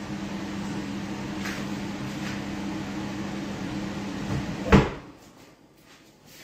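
A steady kitchen-appliance hum with two low tones, then a sharp knock of a cupboard door closing near the end; the hum cuts off right after the knock.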